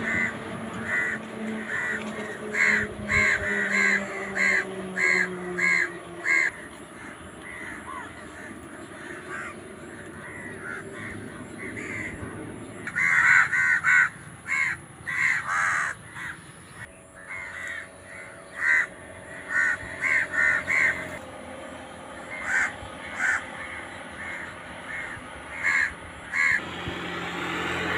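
Crows cawing in bouts of several short calls in quick succession, with pauses between bouts. A faint low hum lies underneath for the first few seconds.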